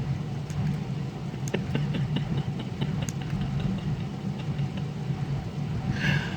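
Pickup truck engine idling steadily, heard from inside the cab. A run of faint quick ticks, about four a second, comes through for a few seconds in the middle.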